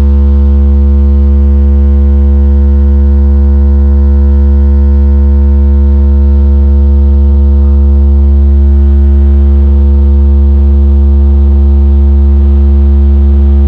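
Car audio subwoofer system playing one deep, steady bass tone at very high volume for a sound-pressure (SPL) contest run.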